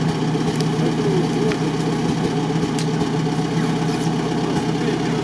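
UAZ off-roader's engine idling steadily.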